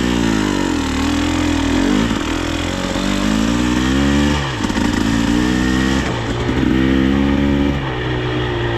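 Dirt bike engine running under way, its pitch climbing and falling again several times as the throttle is worked, with a clear drop about four and a half seconds in.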